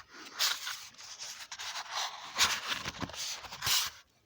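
Irregular rubbing and scraping strokes close to the microphone, stopping abruptly near the end.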